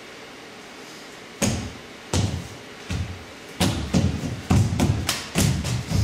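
Sharp percussive hits: a few single thumps spaced well apart, then from about three and a half seconds a fast, irregular run of hits.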